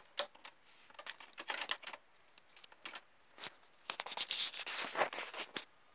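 Handling noise: scattered clicks, scrapes and rustles, bunched about a second in and again about four seconds in, as hands plug cables into the back of a desktop computer.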